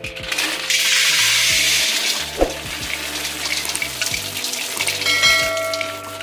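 Roasted kusum seeds poured from a pot into a metal basin: a dense rush of seeds that is loudest for the first two seconds, then thins to scattered clicks. A bell-like chime rings near the end, over background music.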